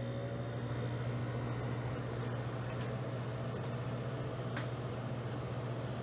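1990 Friedrich Quietmaster 12,000 BTU wall air conditioner running on cool: the compressor gives a steady low hum under the even rush of the fan blowing air.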